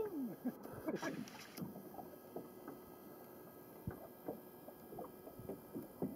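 Faint ambience aboard a small fishing boat on the water: scattered soft knocks and light lapping, with a voice trailing off at the very start.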